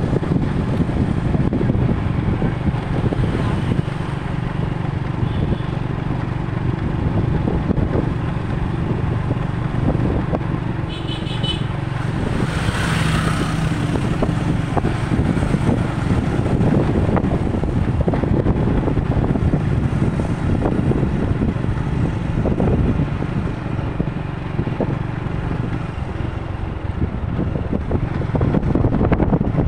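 Steady street traffic noise, motor vehicles such as cars and motorbikes passing, with a brief louder swell about halfway through.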